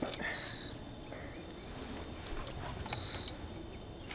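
Insects chirping in the background: a high, steady trill that comes and goes in half-second stretches about once a second, over faint outdoor background noise.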